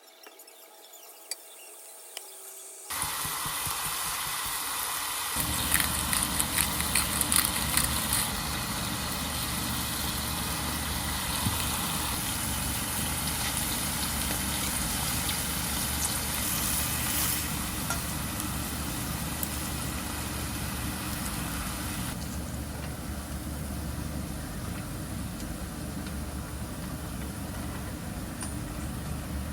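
A steady machine hum that starts suddenly about three seconds in, joined a couple of seconds later by a deeper steady drone, with a short run of crackling near the middle.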